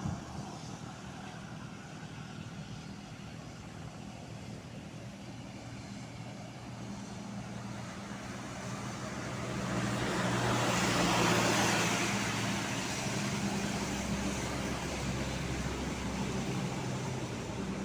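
A vehicle engine running steadily with a low hum, under traffic road noise. The road noise swells to a peak about ten to twelve seconds in, then eases off.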